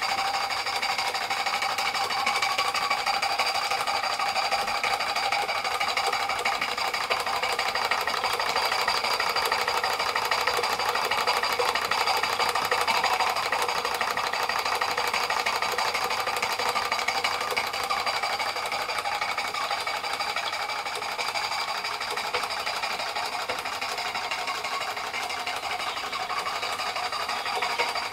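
Märklin 16051 compound twin-cylinder horizontal stationary steam engine running steadily on live steam: a fast, even mechanical clatter of exhaust beats and moving parts with a steady hiss, becoming a little quieter in the second half.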